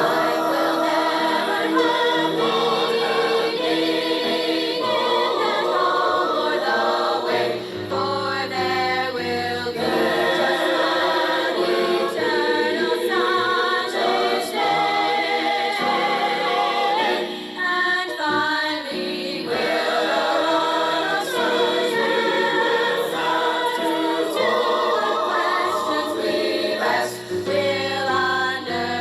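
A choir of mixed voices singing a gospel hymn together in harmony, in sustained phrases with short breaks between them.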